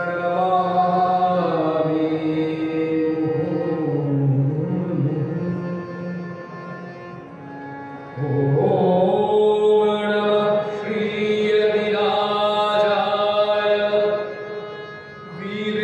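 Male voice singing a Bengali devotional song to harmonium accompaniment, in long phrases with held, bending notes; a second phrase begins, louder, about eight seconds in.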